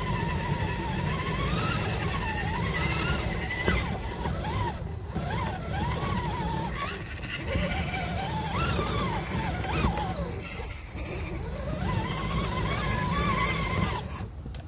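RC rock crawler's electric motor and gearbox whining as it drives over rough dirt, the pitch rising and falling with the throttle, over a steady low rumble. The sound drops off just before the end.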